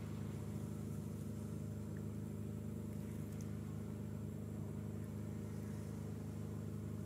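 A steady low mechanical hum, made of several even tones that hold the same pitch throughout.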